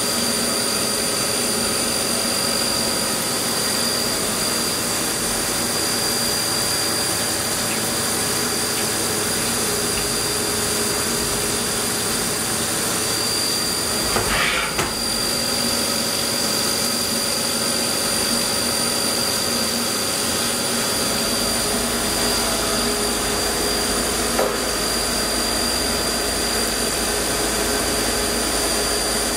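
Haas VF-2 vertical CNC machining center running a milling program under flood coolant: a steady mix of spindle and cutting noise with coolant spray and a steady high whine over it. A brief louder burst of noise comes about halfway through.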